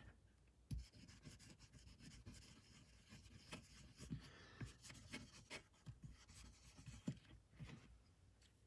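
Faint rubbing and scrubbing of an alcohol wipe over the copper contact plates of a MacBook Pro heat-pipe heat sink, cleaning off old thermal paste, with a few light taps. It stops shortly before the end.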